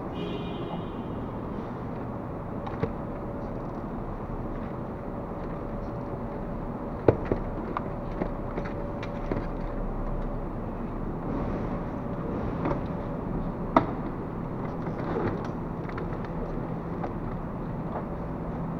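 Steady low hum of an underground car park, with a few sharp knocks and clacks from things being moved in and around an open hatchback boot, the loudest about seven and fourteen seconds in.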